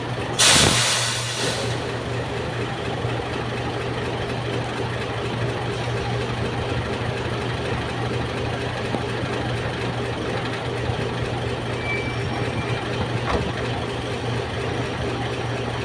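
A heavy diesel engine idling with a steady low hum. A short, loud hiss comes right at the start and lasts about a second.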